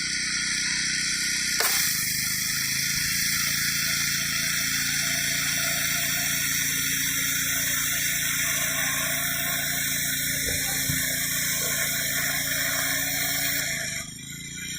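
Gas-engine pressure washer running steadily, with the high-pressure water jet hissing against concrete. The level drops about 14 seconds in.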